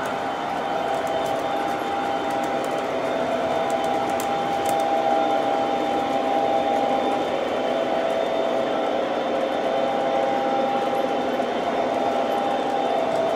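O gauge model freight train running along the track: a steady rolling rumble of the cars' wheels on the rails with a steady whine from the locomotive motor.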